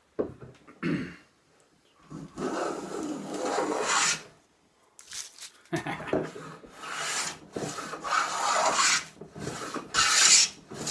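Wooden tongue-and-groove hand plane cutting along a board and taking full-length shavings. After a couple of short knocks at the start come one long stroke and then several shorter strokes with brief pauses between them.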